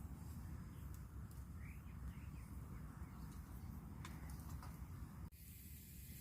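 Faint outdoor ambience with a steady low rumble and a few scattered faint clicks. A bird chirps faintly several times about two seconds in, and the background changes abruptly near the end.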